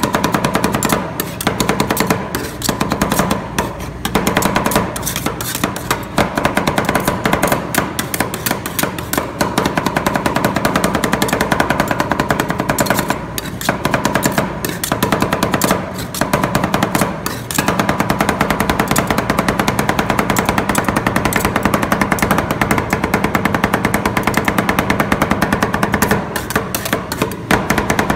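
Metal spatulas rapidly and repeatedly chopping on the steel cold plate of a rolled ice cream stand, clacking many times a second as biscuit pieces are chopped into the freezing cream, with a few brief pauses. A steady hum runs underneath.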